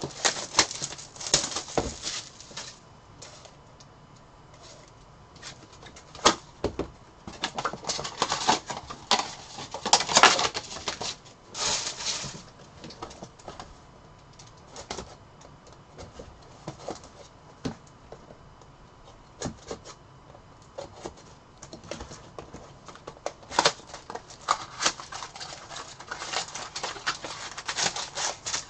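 Crinkling and tearing of plastic wrapping, with sharp clicks of cardboard and trading cards being handled, as a box of 2021 Bowman's Best baseball cards is unwrapped and opened. The crinkling comes in irregular bursts, loudest near the start, about a third of the way in, and in the last few seconds.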